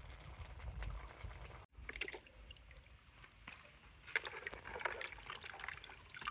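Water sloshing and splashing in irregular bursts, busiest in the second half, with a low rumble in the first couple of seconds.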